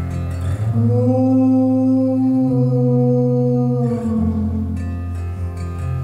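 Live acoustic guitar with wordless sung vocal, holding a long note for about three seconds before moving to another.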